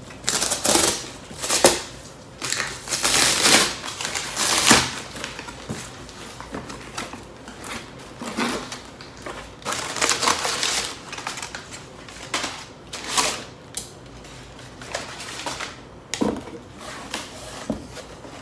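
Crumpled kraft packing paper crinkling and rustling as hands dig through it in a cardboard box, along with the box's flaps being handled. It comes in irregular bursts, loudest and busiest in the first few seconds.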